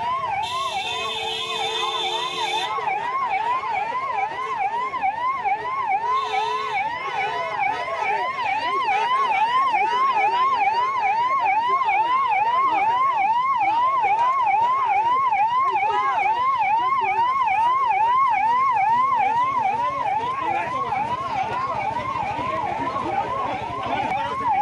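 Police siren wailing in a fast, repeating rise and fall, about two and a half sweeps a second. A horn sounds a steady tone for about two seconds starting just after the siren begins, and again briefly around six seconds in.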